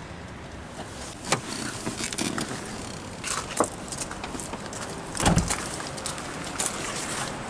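Bonnet of a 2002 Renault Megane being opened: a click from the release lever, footsteps on gravel, then a loud thump a little over five seconds in as the bonnet is freed and lifted.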